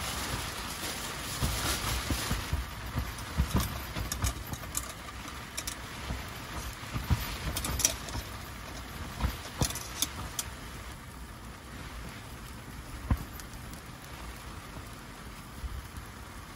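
Steady rain pattering on the tent and car, heard from inside, with scattered sharp ticks and knocks. It eases a little after about ten seconds.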